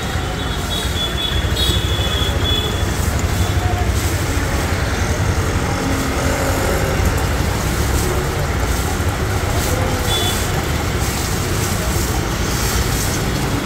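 A 4.5 HP, 200-bar electric high-pressure washer running steadily, its water jet spraying from the lance.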